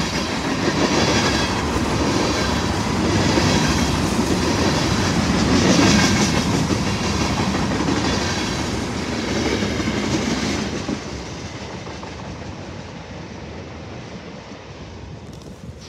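Freight train cars rolling past at close range, their steel wheels clattering over the rail joints. About ten seconds in the sound drops sharply, then fades as the end of the train moves away.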